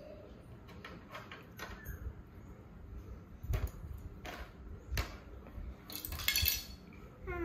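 Hard plastic toy pieces clicking and knocking as a child handles a pink plastic Barbie playset: separate knocks every second or so, then a quick rattle of clicks near the end.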